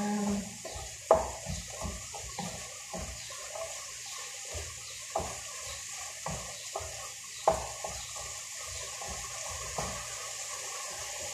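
Wooden spatula scraping and knocking irregularly against a frying pan as minced chicken with vegetables is stirred, over a steady sizzling hiss from the pan. A few of the knocks are louder than the rest.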